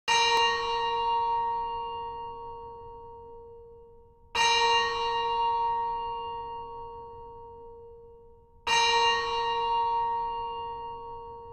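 HTC Sense 4 phone alarm tone: a bell-like chime struck three times, about every four seconds, each strike ringing out and slowly fading.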